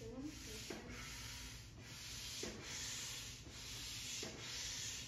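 Air pump filling a vinyl unicorn pool float, a hissing rush of air that swells and fades in regular strokes, about three every two seconds.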